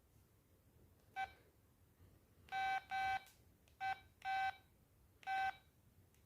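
LG MD5330 mobile phone beeping: six buzzy electronic beeps, all at the same pitch, two very short and four a little longer, at uneven spacing.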